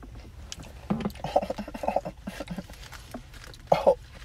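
A man's quiet murmured vocal sounds while tasting food, with a short louder one near the end, over a steady low hum inside a car.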